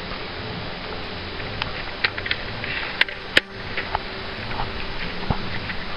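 Steady background hiss with scattered light clicks and a brief rustle. Two sharp clicks about three seconds in, half a second apart, are the loudest sounds.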